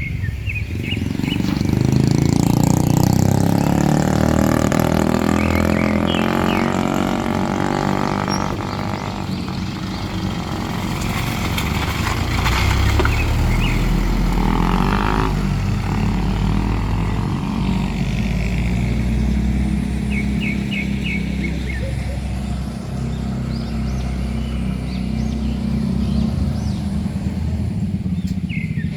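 Motor vehicle engine running continuously, its pitch rising and falling now and then, with road noise underneath.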